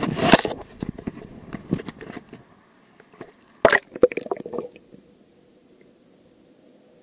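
Irregular sharp clicks and crackles in two clusters, one right at the start and another about three and a half seconds in, with scattered clicks between, then a faint steady hum.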